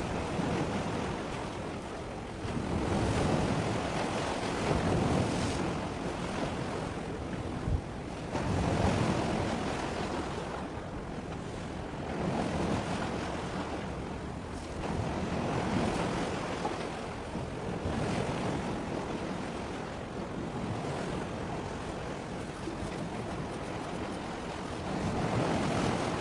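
Sea waves washing in, swelling and fading every few seconds, with wind noise on the microphone.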